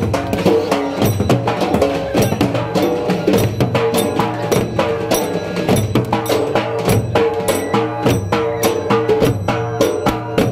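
Music with dense, fast percussion over sustained pitched tones.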